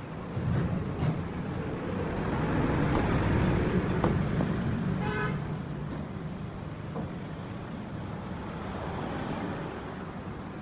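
Steady road traffic noise, with a vehicle horn giving a short toot about five seconds in.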